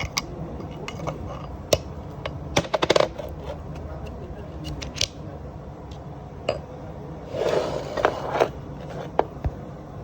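Metal hand tools and parts clinking against each other during work on a differential pinion seal: scattered sharp clinks, a quick cluster of them about two and a half seconds in, and a short scraping stretch from about seven to eight and a half seconds in.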